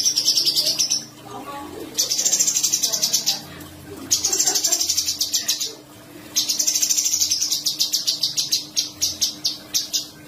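Cucak cungkok singing high, rapid rolling trills in bursts of one to two seconds, with short pauses between them. Softer, lower chirps sound underneath.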